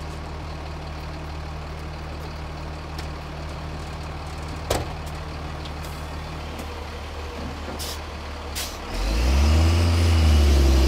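Flatbed tow truck's engine running at a steady low idle, with a single sharp knock about five seconds in. Near the end the engine revs up and holds at a much louder, higher speed.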